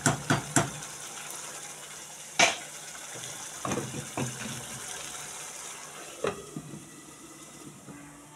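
A wooden spoon tapping on the rim of a metal cooking pot three more times, then a loud knock and a few lighter clinks as a glass pot lid is handled and set on a pot, over a steady hiss.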